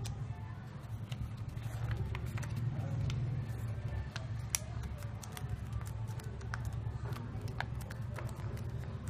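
Square of origami paper being folded and creased by hand: irregular soft crinkles and sharp little snaps of the paper, over a steady low hum.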